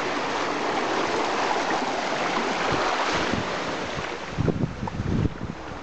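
Steady wash of shallow sea water and wind at the shoreline, then wind buffeting the microphone in low, uneven gusts from about four seconds in.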